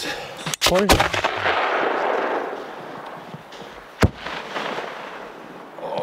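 A comet aerial firework shell is fired from its mortar tube with a sharp bang just under a second in, and bursts in the air with a single sharp report about three seconds later.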